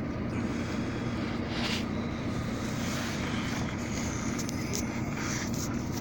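A car running steadily: an even rumble with a faint low hum.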